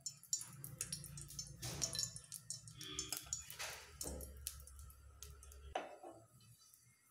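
A metal spoon clinking and scraping in a non-stick frying pan as ghee is spooned in, with scattered faint taps. A low hum runs underneath and cuts off suddenly near the end.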